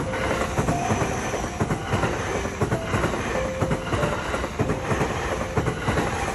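Electric express train passing close by at a level crossing, its wheels clattering steadily over the rail joints.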